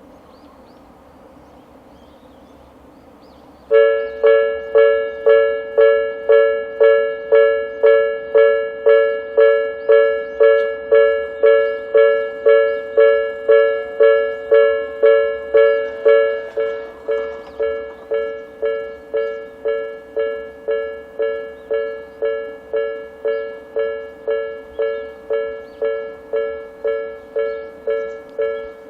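Japanese railway level-crossing alarm, an electronic two-tone bell, starts suddenly about four seconds in and rings a ding about twice a second. About thirteen seconds after starting it drops to a noticeably lower volume and keeps ringing.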